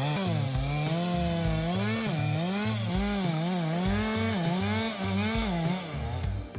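Stihl MS 462 C two-stroke chainsaw cutting through a large fir trunk. The engine pitch keeps dipping and recovering as the chain bogs under load in the cut, then drops near the end.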